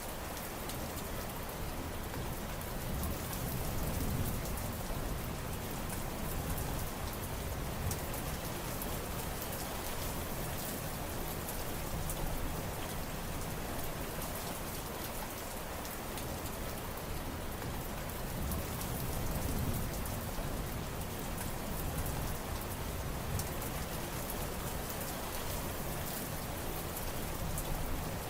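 Steady heavy rain falling, a dense hiss of drops with many single drop ticks, and a low rumble that swells a little a few times.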